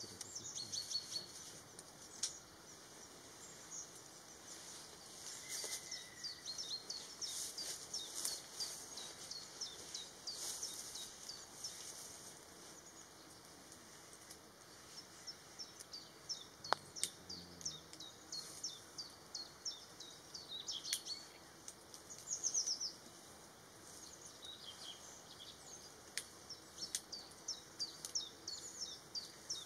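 Small birds chirping and singing: a dense, continuous run of short high chirps and whistles over a low steady background noise, with a single sharp click about halfway through.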